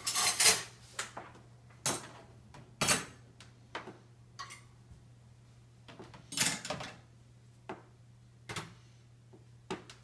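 Metal forks and spoons clinking as they are dropped one by one into a dishwasher's cutlery basket. There are several separate clinks, a second or two apart.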